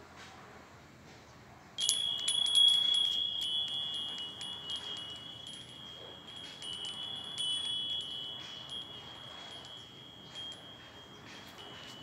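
Hanging metal bell wind chime struck by the wind about two seconds in: a quick cluster of clinks, then one high clear tone that rings on and slowly fades, with a few lighter taps along the way.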